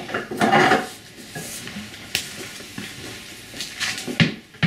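Wooden knocking and clatter as the headgate of a wooden goat milking stand is shut and latched, followed by scattered clicks and two sharp knocks near the end.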